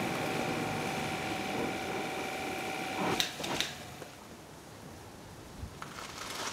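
Kranzle K7 pressure washer running with a steady whine while its lance sprays water into a wash bucket. It cuts off about three seconds in with a couple of sharp clicks as the trigger is released. A few faint knocks follow near the end.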